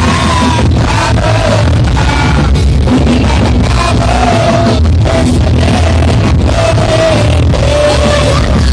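Live rock band playing with a male lead singer, heard loud through a concert sound system, with heavy continuous bass under the sung melody.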